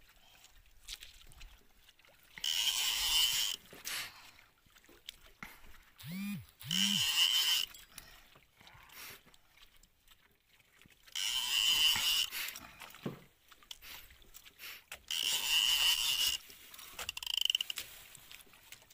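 Spinning fishing reel cranked in four short whirring bursts, each about a second long and some four seconds apart, as the line is worked. Two short low grunts come near the middle.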